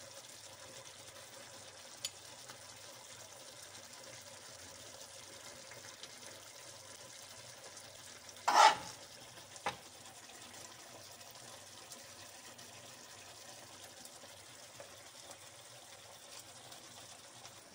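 Tomato sauce simmering with a faint, steady sizzle in a frying pan as a metal spoon fills the fried aubergines. The spoon scrapes the pan once, loud and short, about eight and a half seconds in, with lighter clicks of metal around two and ten seconds.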